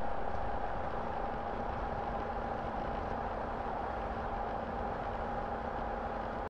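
Honda Africa Twin motorcycle engine running steadily with a constant hum and no change in revs.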